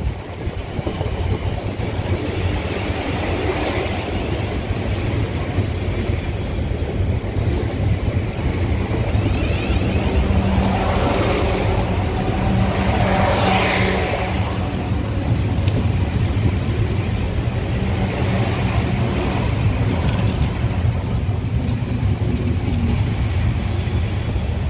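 South Western Railway Siemens Desiro electric multiple unit passing close by, with a steady rumble from its wheels on the track. A humming tone and a whine that rises and falls come in through the middle and are loudest about halfway, as the cab ends of two coupled units go past.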